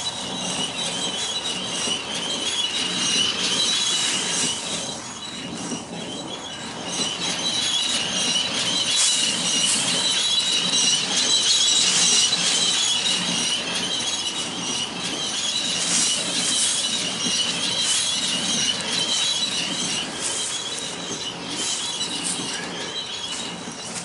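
Dry, broken hay rustling and scraping as it is pushed along a windrow, over a steady high-pitched whine.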